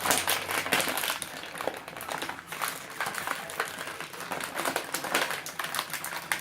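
Toy packaging being handled: a dense run of crinkles, rustles and small plastic clicks.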